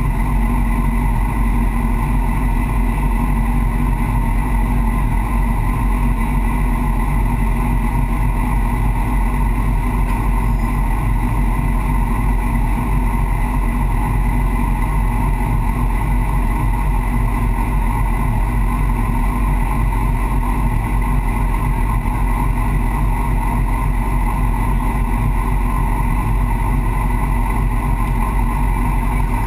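Yamaha FZ6's inline-four engine idling steadily in neutral with the bike at a standstill, heard up close from its fuel tank.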